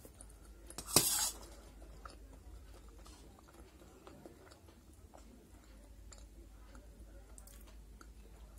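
A metal spoon scrapes sharply across a stainless steel plate once, briefly, about a second in, scooping up pasta. Faint chewing and small mouth clicks follow.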